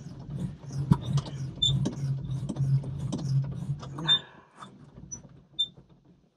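Suspension seat of a John Deere 5075E tractor being bounced on, giving short high squeaks and small knocks. Its spring and shock have just been sprayed with Fluid Film, and only a little squeak is left. A steady low hum underneath fades away about four seconds in.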